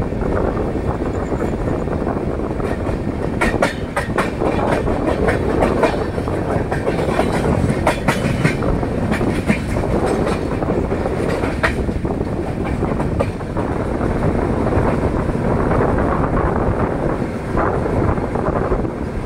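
Running noise of the Gorakhpur Superfast Express's coaches at speed: a steady rumble of wheels on track, with irregular sharp clacks and clanks from the wheels and couplings, most of them in the middle stretch.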